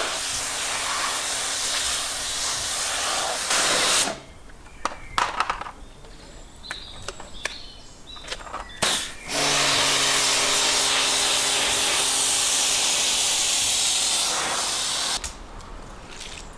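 Pressure washer spraying water onto a large salmon and the concrete under it: a loud steady hiss with the pump motor's low hum. It stops about four seconds in, leaving a few knocks and drips, starts again about five seconds later and cuts off shortly before the end.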